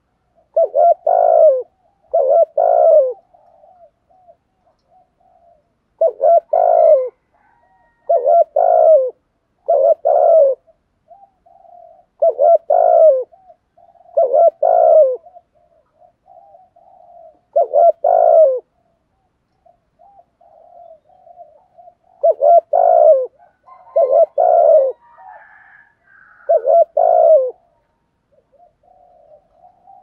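Spotted dove cooing: a run of loud coo phrases, one every second or two, with soft low notes between them. It is a caged decoy bird's bowing coo, the call used to draw wild doves into calling.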